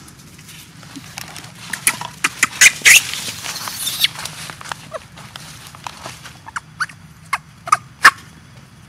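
Baby macaque giving a string of short, sharp squeaks and clicks, loudest about three seconds in and again just after eight seconds.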